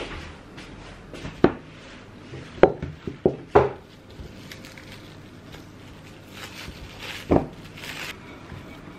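A few sharp knocks and taps of things being handled, loudest in the first few seconds, then plastic cling film crinkling as it is peeled off a chilled disc of butter cookie dough, with another knock near the end.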